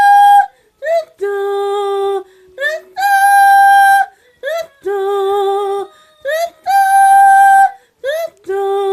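A high voice singing wordless held notes that leap back and forth an octave, each note scooped up into from below, with short breaks between them.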